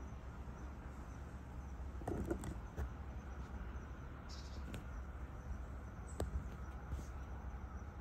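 Quiet outdoor ambience: a steady low rumble, a short faint sound about two seconds in, one brief high chirp about four seconds in, and a few faint clicks.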